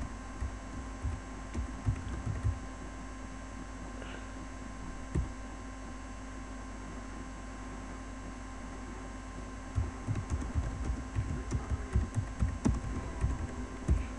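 Typing on a computer keyboard, heard as quick dull key thumps in two spells: over the first couple of seconds and again from about ten seconds in. A steady electrical hum runs underneath.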